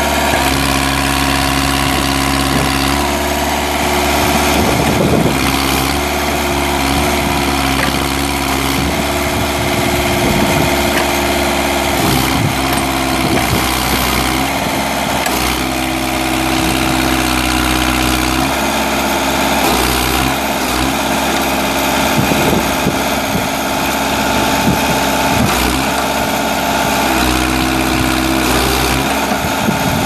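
Perkins four-cylinder diesel engine of a New Holland LB620 backhoe running steadily while the backhoe boom and bucket are worked. Its note dips and recovers several times as the hydraulics take load.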